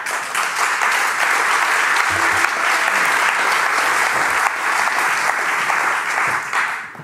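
Audience applauding, steady and sustained, dying away near the end.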